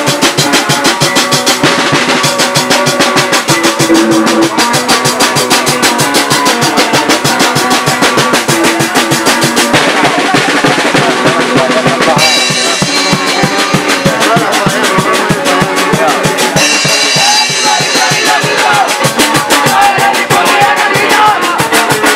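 Live punk band playing loud and fast, with a dense, rapid drum-kit beat over sustained chords.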